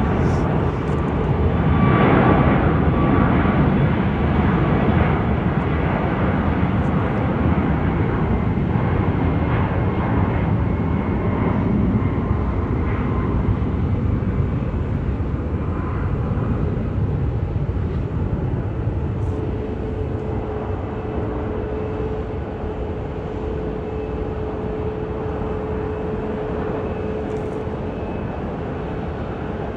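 A jet airliner's engines, a loud continuous roar with a faint whine in it, loudest about two seconds in and then slowly fading as the aircraft moves away.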